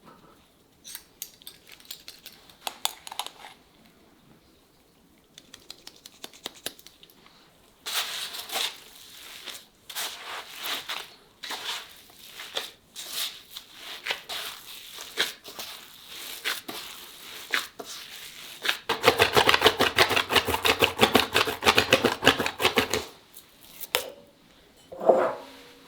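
Baking paper being handled, with crinkling, rustling and tearing in scattered scratchy strokes. A dense run of rapid, louder scratching lasts about four seconds near the end.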